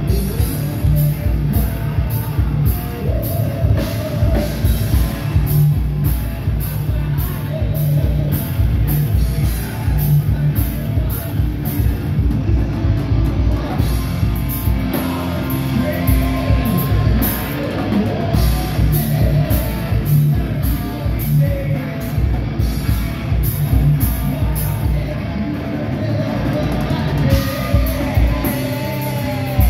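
A heavy metal band playing live: fast drums with dense cymbal hits, bass and guitars.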